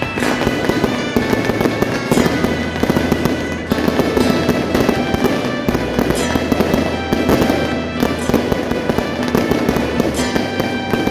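Electronic firecracker cannon sounding a continuous rapid crackle of firecracker bursts, mixed with loud music that has steady tones and a pulsing bass.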